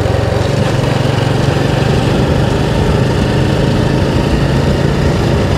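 Motorbike engine running steadily while riding, with rushing road and wind noise; the engine note shifts slightly about half a second in.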